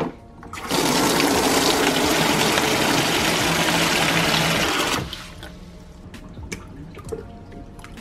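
Water from a wall tap running into a plastic basin in a steel sink, starting about a second in and shut off about four seconds later. Then a few faint drips and small knocks.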